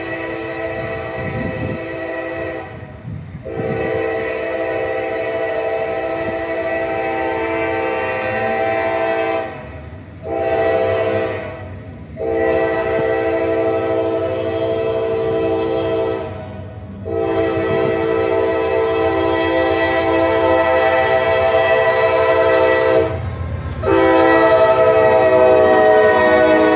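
Norfolk Southern diesel locomotive's air horn, several tones sounding together, blown in a string of blasts: long, long, short, long, then two more long blasts as the train draws up. This is the standard grade-crossing warning pattern. A low train rumble runs underneath.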